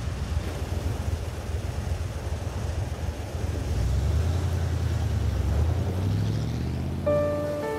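Car engine and road noise from a moving SUV, a steady low rumble that swells and climbs in pitch about four seconds in as the engine speeds up. A few notes of music come in near the end.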